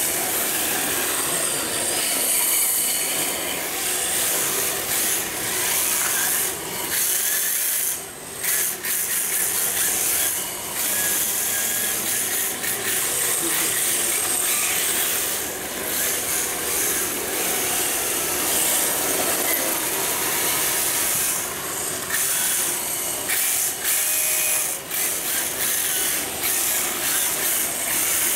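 Hard drift tyres of a 3Racing Sakura D4 1/10 RC drift car scraping across a smooth painted floor as it slides, a steady hissy rasp. It drops away briefly a couple of times.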